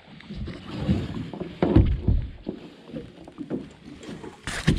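Plastic sit-on-top kayak rocking and shifting on the water, with several low thumps against the hull about two seconds in and a sharp knock near the end.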